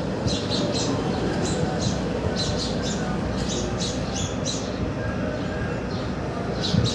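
Small birds chirping in quick clusters of short, high chirps, squabbling with one another, over a steady low rumble.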